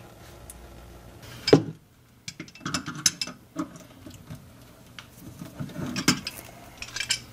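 A metal hand tool clicking and clinking against the chrome pop-up drain's nut under the sink basin as the drain is worked loose, in irregular sharp clicks, after one loud knock about a second and a half in.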